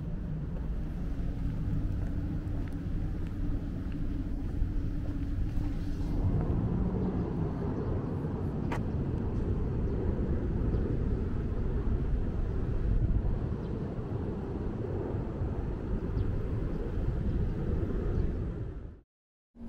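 Outdoor ambience at a ferry port: a steady low rumble with a faint low hum for the first six seconds, then a fuller rushing noise. It cuts off suddenly just before the end.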